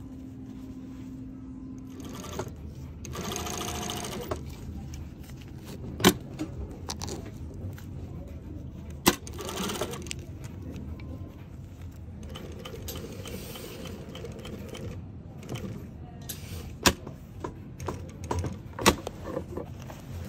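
Juki industrial sewing machine stitching a zipper into denim jeans in short runs, with several sharp clicks in between.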